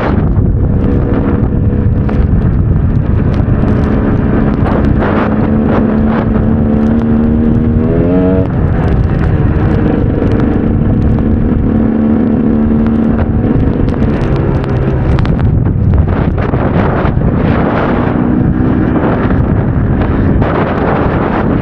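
KTM EXC 300 two-stroke enduro engine running under riding, holding a steady pitch, revving up sharply about eight seconds in, easing off around fourteen seconds, then steady again near the end, with wind noise over the microphone.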